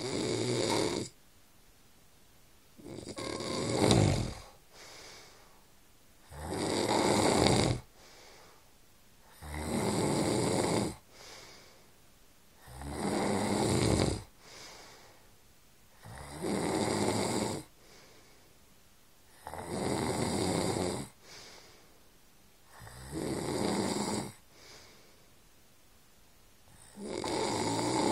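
A man snoring in his sleep, with loud, rhythmic snores on each breath in, one about every three to three and a half seconds. Each snore is followed by a faint short breath out.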